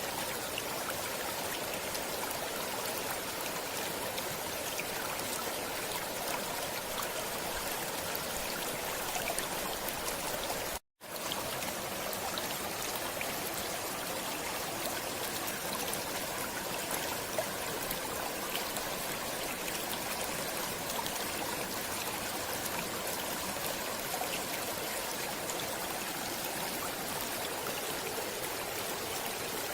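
Stream water flowing and babbling steadily, with fine splashing trickles throughout; the sound drops out completely for an instant about eleven seconds in.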